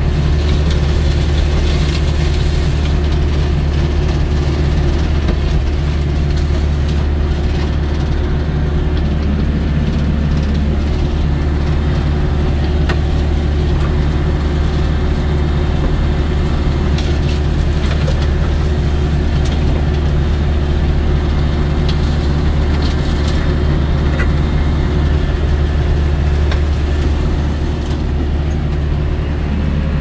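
Yanmar YH7140 combine harvester running steadily while harvesting rice, heard from inside the cab: a loud, even drone of engine and threshing machinery with a deep hum and a few scattered clicks.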